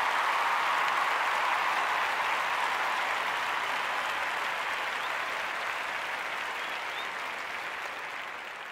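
Crowd applauding, a dense steady clapping that slowly fades away near the end.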